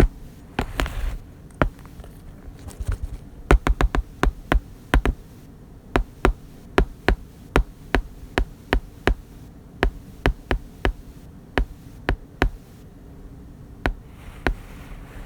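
Irregular series of sharp plastic clicks, two or three a second with some quick clusters, over a low steady hum: LEGO bricks being snapped together.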